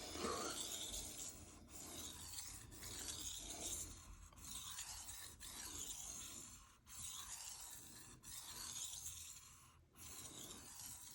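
Steel knife blade being drawn across a Shapton Rockstar 1000 grit whetstone in a steady run of sharpening strokes. Each pass is a gritty scraping rasp, about eight passes, each broken off by a short pause.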